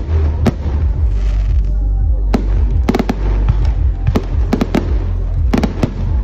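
Aerial firework shells bursting in a rapid, irregular series of sharp bangs, some in quick clusters, over a continuous deep low rumble.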